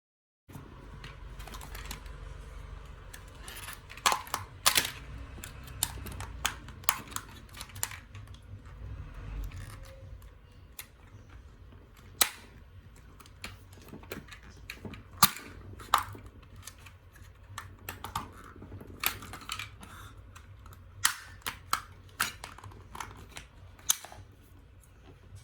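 Irregular sharp plastic clicks and snaps as the plastic grip and back panels of an Xbox One controller are pried and worked loose, the clips releasing, over a low steady hum.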